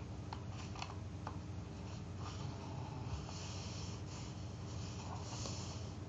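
A sheet of paper rustling and sliding as hands fold it and smooth down the crease. There are a few short crinkles in the first second or so, then soft rubbing rustles, over a low steady hum.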